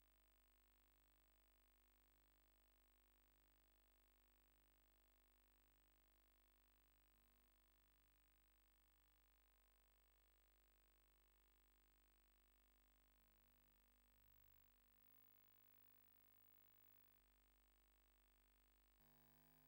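Near silence: faint steady hum and hiss.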